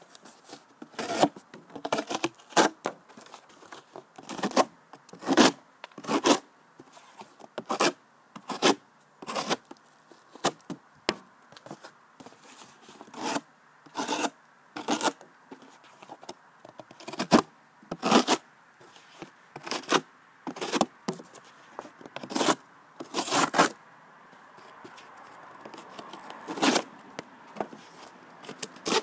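Leatherman Skeletool CX knife blade slicing through cardboard, stroke after stroke. Each cut is a short rasping scrape, coming about once a second with irregular pauses.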